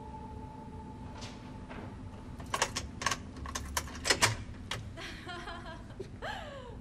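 About ten sharp clicks and taps over roughly two seconds, starting about two and a half seconds in, then softer rustling. A held music tone fades out in the first two seconds.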